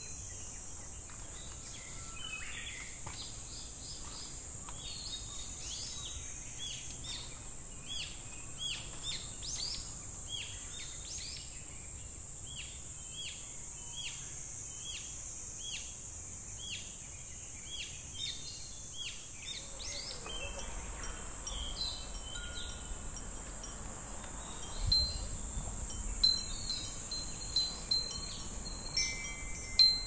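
Cicadas droning steadily and high-pitched, with a short chirping call repeating about twice a second through the first two-thirds. In the last few seconds glass fūrin wind chimes ring several times, the loudest sounds here.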